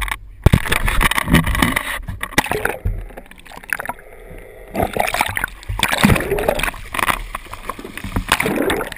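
Water splashing and gurgling over a camera's microphone as it is dunked into the sea and pulled back out, turning muffled and duller for a second or two about three seconds in while it is underwater.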